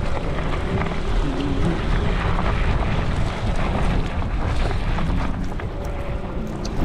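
Wind buffeting the microphone of a bicycle riding through snow, a loud, steady rumble with scattered small ticks.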